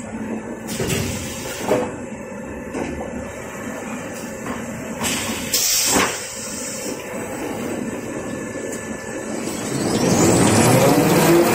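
Kitchen towel and toilet paper roll making machine running, a steady mechanical rumble and rattle from its rollers and drive with a few sharp knocks. About ten seconds in it grows louder with a rising whine as the drive speeds up.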